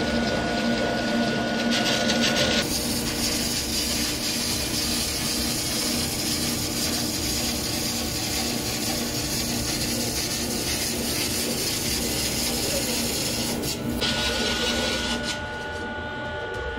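Spinning tools on long levers pressed against a large metal sheet turning on a spinning lathe, as the sheet is formed into a dish. The metal gives a steady scraping hiss that starts about two and a half seconds in and stops about fourteen seconds in. Under it the machine hums steadily.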